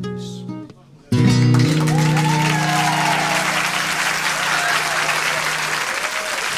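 The last notes of an acoustic guitar song fade out. After a short pause, a sustained chord rings while the audience claps.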